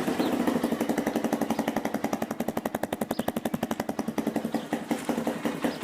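Honda CRF230's single-cylinder four-stroke engine idling with a rapid, even beat, warming up before an oil change.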